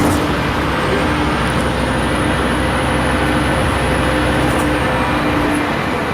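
Scania K310 city bus with a diesel engine running under way, giving steady engine and road noise. A faint high whine rises about half a second in, holds, and falls away near the end.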